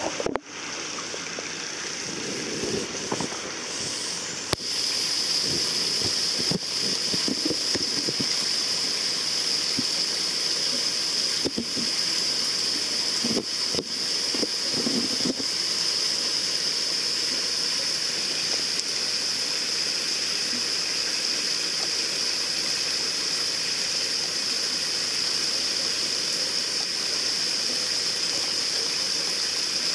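Water running and splashing steadily into a koi pond, with a few brief lower gurgles in the first half.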